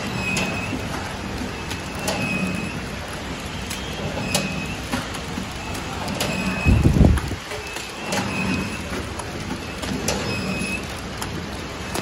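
Horizontal flow wrap packing machine running steadily, a constant mechanical hum with a sharp click repeating about once a second as it cycles. A dull, heavy low thump about seven seconds in.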